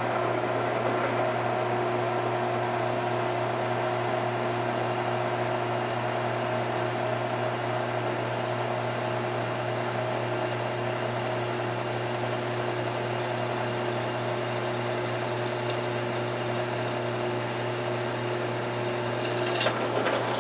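Delta benchtop drill press motor running steadily while the bit is fed down through a steel bar, with a few sharp clicks about a second before the end.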